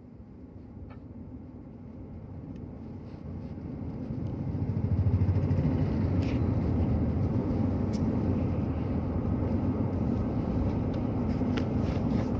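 Low, steady rumble of a car on the move, building over the first few seconds and holding level from about five seconds in.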